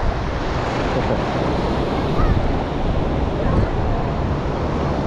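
Small waves washing in over the shallows at the water's edge, with wind buffeting the microphone.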